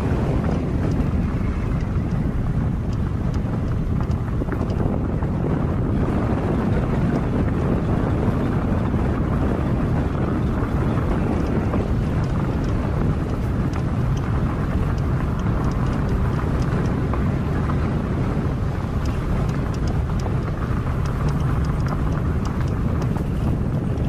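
SsangYong Rexton SUV driving along a dirt and gravel forest road: a steady low drone of engine and tyres, mixed with wind buffeting a microphone mounted on the hood.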